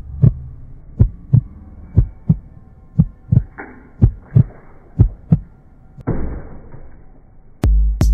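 Heartbeat sound effect: paired lub-dub thumps about once a second, with two hissing swells between them. Near the end, music with a deep bass beat comes in.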